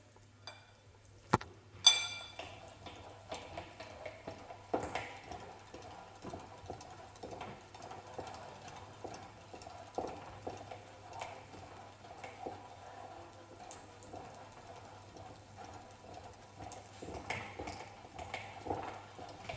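A sharp tap and then a ringing clink about two seconds in, as a plastic tool meets a porcelain plate, followed by light, irregular clicks and knocks from handling a plastic manual meat grinder.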